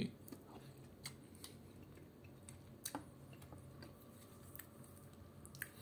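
Faint, scattered clicks and taps of a metal spoon against an opened tin can of tuna, over a low room hum.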